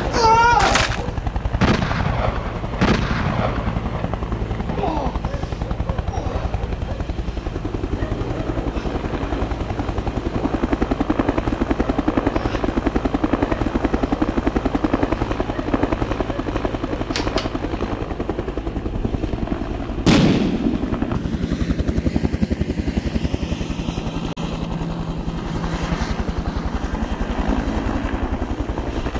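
Helicopter rotor chop pulsing steadily, broken by a few sharp bangs near the start and a louder one about twenty seconds in.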